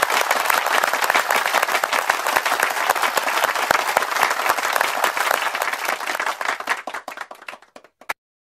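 Applause: many hands clapping together, thinning out over the last couple of seconds and stopping, with one last lone clap near the end.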